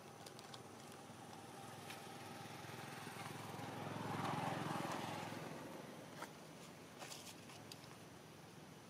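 A motor vehicle passing by: its engine grows louder, is loudest about four and a half seconds in, then fades away, with a few light clicks afterwards.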